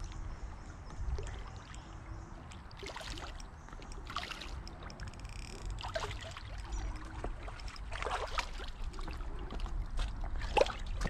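A small common carp splashing in shallow water at a rocky bank as it is played in on light line, with several short splashes over a steady low rumble.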